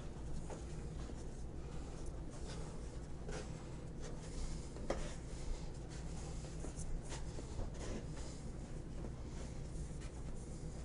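Hands rolling cinnamon-sugar-covered dough into a log on a wooden table: soft rubbing and light scuffs with a few faint taps, over a steady low hum.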